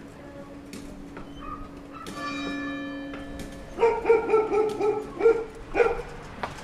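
A bell is struck once about two seconds in and rings on, fading. Then a dog starts barking, about four seconds in, in a quick run of barks.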